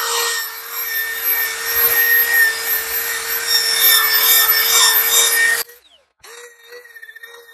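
Corded electric drill spinning a nylon abrasive wheel against charred spruce: a steady motor whine with a rough scrubbing hiss as the wheel cleans the burnt layer off the wood. About five and a half seconds in the sound drops suddenly and goes on much more faintly.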